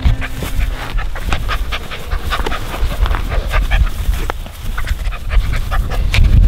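A puppy panting in quick short breaths as it play-bites and tussles with a hand, over a low rumble and rustle from the camera being jostled close by.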